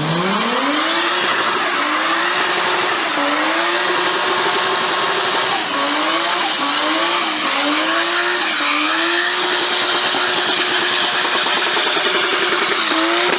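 Car engine revved up and held at high revs, its pitch dipping and climbing back several times, over a loud hiss and squeal of spinning tyres: a burnout. The revs fall away right at the end.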